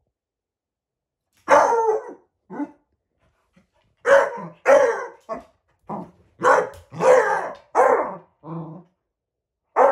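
A beagle barking at a shadow on the floor: about ten barks that start about a second and a half in and come every half second or so, a couple of them drawn out.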